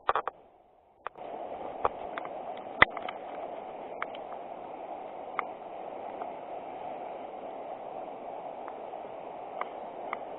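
River water running steadily, starting suddenly about a second in, with a few sharp clicks at the start and scattered small clicks over it.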